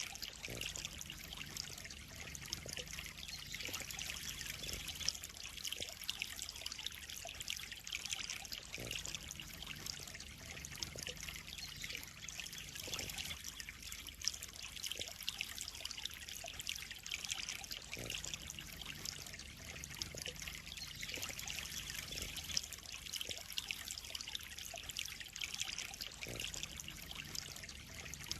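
Water trickling and splashing steadily into a koi pond, an even continuous patter with no pauses.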